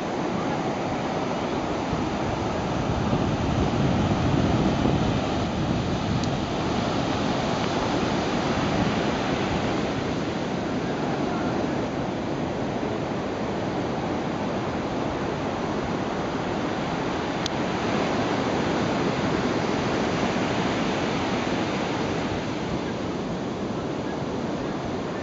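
Ocean surf breaking and washing up a sandy beach: a steady rush of noise that swells a little about four seconds in.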